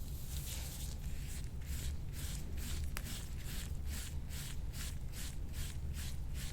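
Quick, even rubbing strokes of hands or a massage tool over skin in soft-tissue massage, about four strokes a second, over a low steady hum.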